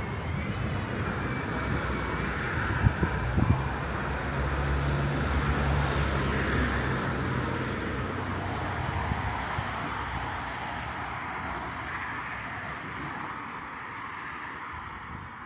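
Road traffic: motor vehicles passing on a street, their tyre and engine noise slowly fading away, with a low engine hum in the middle.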